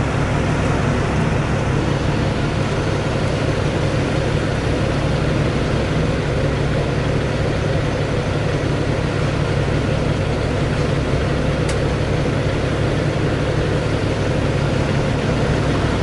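Car ferry's engine running with a steady low drone, heard from the deck while the ferry is under way.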